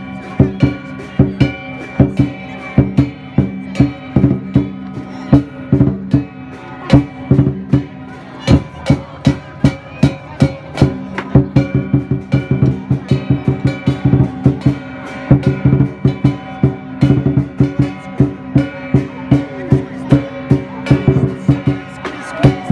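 Music with a fast, steady run of percussive strikes over sustained pitched notes.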